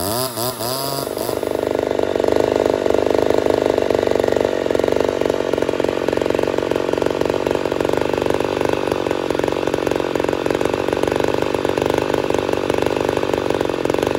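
Ported Poulan 245a two-stroke chainsaw revving up and down briefly, then held at a steady full throttle for about twelve seconds before easing off at the end.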